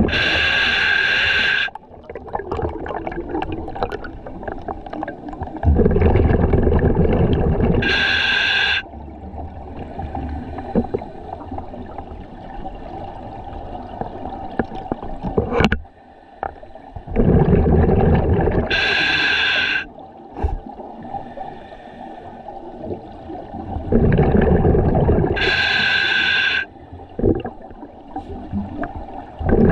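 A scuba diver breathing underwater through a demand regulator. Bubbling rumbles of exhaled air alternate with short hissing inhalations, in slow, even breaths that recur about every eight seconds.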